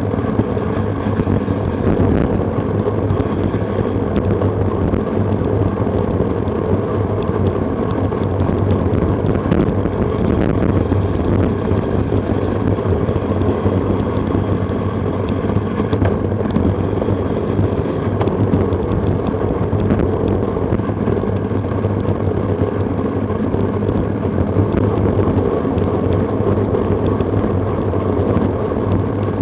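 Steady rush of wind buffeting an action camera's microphone on a bicycle at racing speed, with a few faint clicks.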